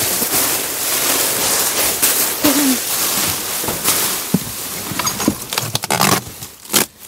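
Plastic trash bags crinkling and rustling, with cardboard boxes scraping and knocking, as they are shifted about by hand in a dumpster.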